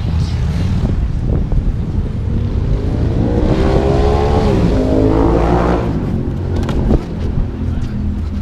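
A motor vehicle's engine going past, revving, its pitch falling and then rising again in the middle, over a steady low rumble.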